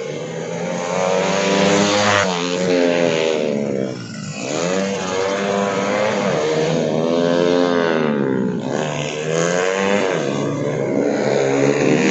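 Several small racing motorcycles accelerating and braking through corners, their engines revving up and falling back over and over as they pass, with the loudest pass near the end.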